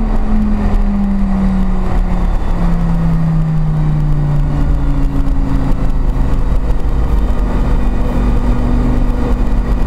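A Lamborghini's engine running under way, heard from inside the cabin over a constant low road rumble. Its note sinks slowly, jumps up about four seconds in, then holds steady through the second half.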